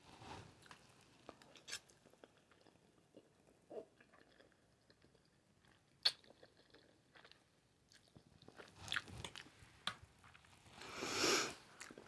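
A person chewing spaghetti in Alfredo sauce: soft, wet mouth clicks and smacks. A sharp click comes about six seconds in, and a louder, longer rush of sound comes near the end.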